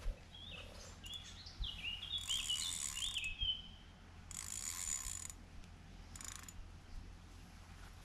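Spinning reel on a carp rod being cranked in three short bursts, a whirring as line is wound in. A small bird chirps rapidly in the first few seconds.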